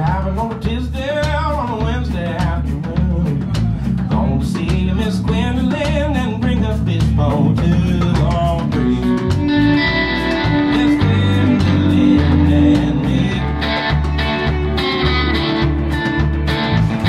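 Live blues band playing with electric guitars over drums, a lead guitar line full of bent, wavering notes in the first half giving way to steadier held notes.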